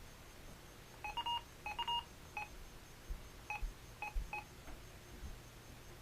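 A run of about eight short electronic beeps at two close pitches, irregularly spaced, from about a second in to the middle. The higher beeps are a little longer, and the beeps are typical of a receiver's button-press tones.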